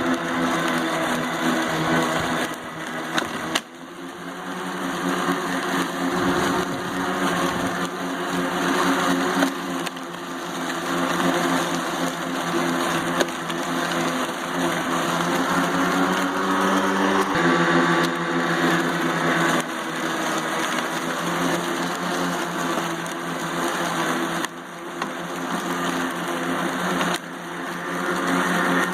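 Greenworks 25302 G-MAX battery-electric push mower running steadily while cutting and bagging grass and leaves: an even motor-and-blade hum, with its level dipping briefly a few times.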